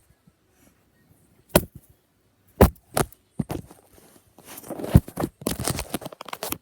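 Three separate sharp knocks, then a quick run of clattering and rattling about halfway through.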